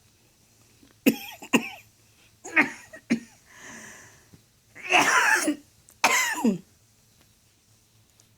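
A woman coughing and hacking: two quick pairs of harsh coughs, a softer stretch, then two longer, louder hacking coughs.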